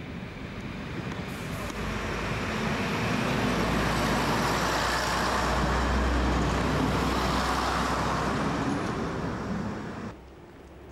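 First-generation Class 117 diesel multiple unit passing close by: a low engine rumble and running noise that grows louder over the first few seconds, holds, and cuts off abruptly near the end.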